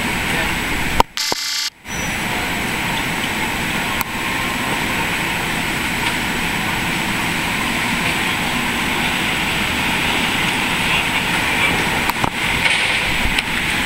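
Steady rushing running noise of a red San Diego Trolley light-rail car passing close by, cutting out briefly about a second in.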